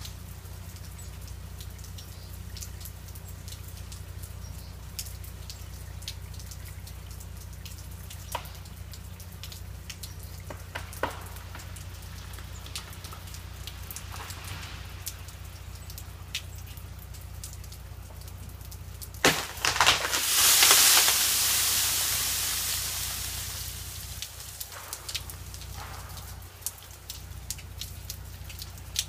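A large ice-laden tree limb breaks off and falls. A sharp crack comes about two-thirds of the way in, then a long crash of breaking, ice-coated branches that fades over about four seconds. Throughout, ice and freezing rain drip and tick from the trees.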